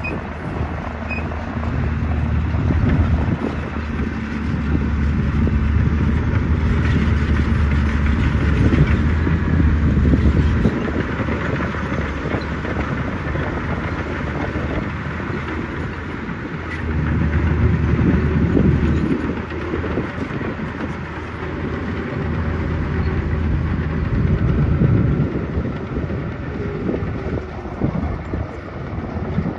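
Diesel engine of heavy earthmoving machinery working, with a steady low hum that rises louder under load for several seconds at a time, longest from about 3 to 11 seconds in and again around 17 and 24 seconds.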